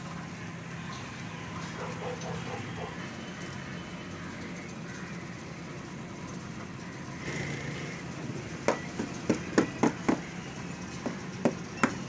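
Small hammer tapping a screw into the edge of a fridge door through its rubber gasket: a quick run of sharp taps about two-thirds in, and a few more near the end, over a steady low hum.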